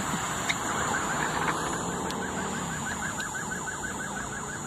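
An electronic siren in the distance, sounding a fast repeating pattern of short rising whoops, several a second, starting about a second in, over a steady wash of traffic noise.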